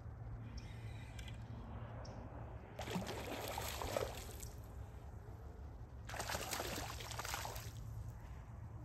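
Two bursts of water sloshing and churning, each about a second and a half long, a few seconds apart, over a steady low hum.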